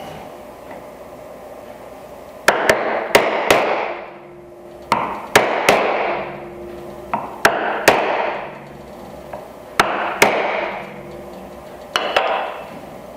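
Mallet striking a chisel to chop waste from dovetail pin sockets in a wooden board, in quick groups of two or three blows, each group followed by a brief ring. The blows start about two and a half seconds in and come about every two seconds.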